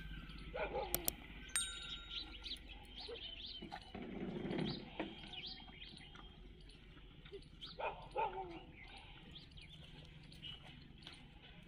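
Small birds chirping and calling, scattered short chirps throughout, with a brief low sound about four seconds in.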